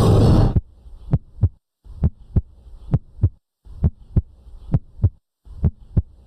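Heartbeat sound effect: pairs of short, low thumps repeating about once a second, starting just after music cuts off about half a second in.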